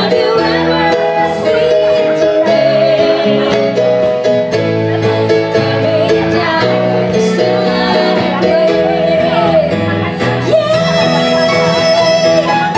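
Live band music: women singing into microphones over keyboard and guitar accompaniment, played through PA speakers.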